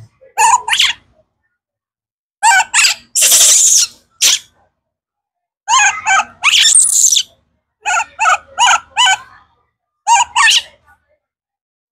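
Baby macaque giving a run of shrill, squealing calls in quick clusters of two to four, with two longer, harsher screams about three seconds in and again near the middle.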